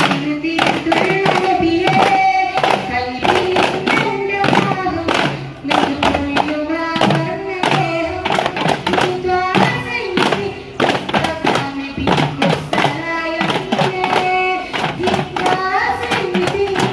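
Daff frame drums beaten by hand in a fast, steady rhythm, with voices singing a devotional song in praise of the Prophet over the drumming.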